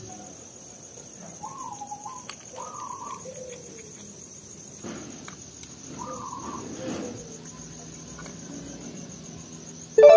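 An insect trilling steadily at a high pitch, with a few short bird calls about 1.5 s and 6 s in. A few faint clicks.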